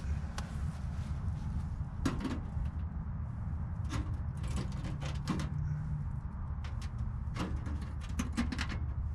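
Scattered metallic clicks and light scrapes of a stovepipe damper and chimney pipe being handled and fitted, over a steady low rumble.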